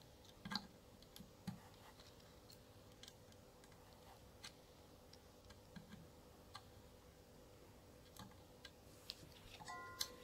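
Near silence with faint, irregular small ticks and clicks from a soldering iron tip and solder wick working excess solder off the header pins on a circuit board. A brief faint tone sounds near the end.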